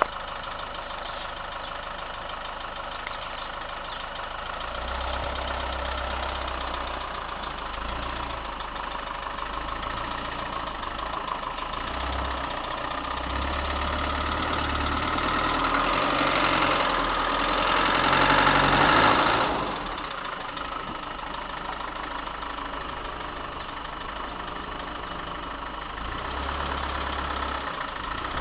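Land Rover Defender 90 engine running at low revs while the truck creeps onto a rocky bank. The revs climb and it gets louder for several seconds about two-thirds of the way through, then drops back suddenly to a steady low run.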